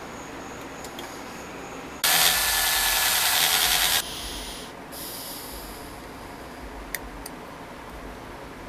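Abrasive sanding of a small metal toy part: about two seconds of loud, harsh rubbing that starts and stops abruptly, then quieter hiss and handling noise with a single click near the end.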